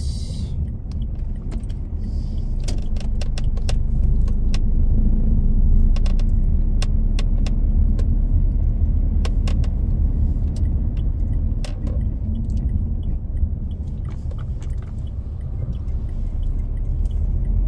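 A car driving, heard from inside the cabin: a steady low rumble of engine and tyres, with scattered light clicks and rattles.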